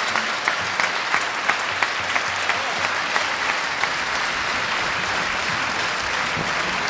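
Theatre audience applauding, with a few claps near the microphone standing out at about three a second through the first half.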